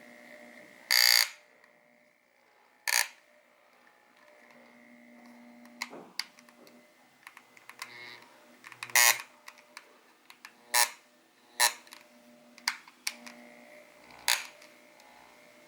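Aoyama electric massager running with a faint steady whine, broken by irregular sharp clicks and knocks, some of them loud: an abnormal mechanical noise from the unit.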